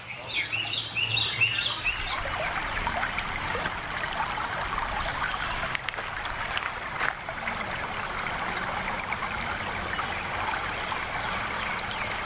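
Small stream babbling and trickling over stones. A bird chirps a quick run of short notes in the first two seconds.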